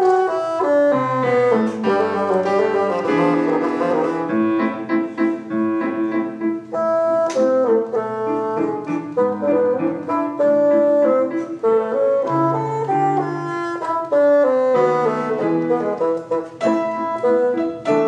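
Bassoon with piano accompaniment playing a brisk classical concerto movement.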